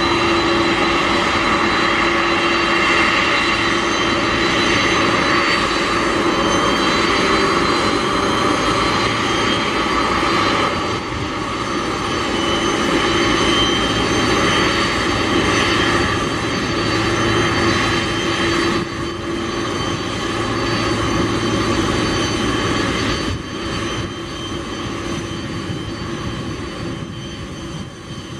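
Boeing 747-400 freighter's jet engines at taxi power as it rolls by close: a steady whine of several held tones over a broad rush of engine noise, easing a little about ten seconds in and again in the last few seconds.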